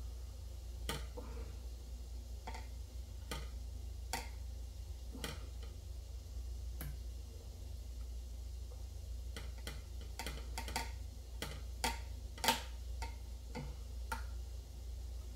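Light, irregular clicks and taps as dumplings are handled in a plastic divided food tray. They come sparsely at first and bunch up about ten to twelve seconds in, over a low steady hum.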